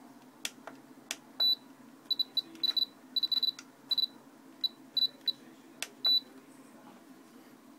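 Spektrum DX6i radio transmitter beeping as its menu is navigated: a dozen or so short, high beeps at one pitch, some in quick runs, with a few sharp clicks from its controls in between.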